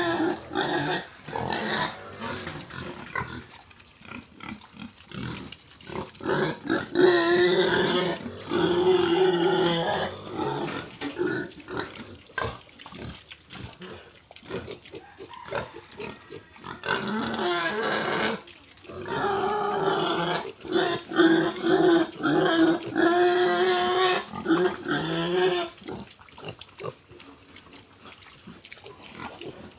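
Pigs calling in pitched, wavering cries of about a second each. There is a run about seven seconds in and a longer run from about seventeen seconds, with scattered knocks and clatter between. It goes quieter near the end.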